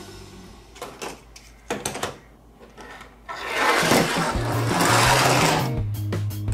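A small Super Wings toy plane's wheel motor whirring as it is run back and forth on a plastic play mat and let go, starting about halfway through and stopping shortly before the end; a few light plastic clicks come first.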